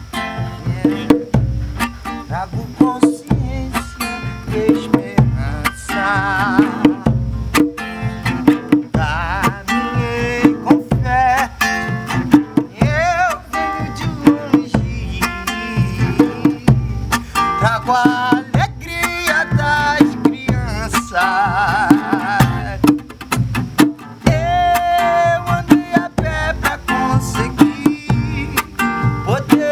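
Instrumental passage of a live acoustic song: hand drums keep a steady beat under acoustic guitar, with a wavering melody line above.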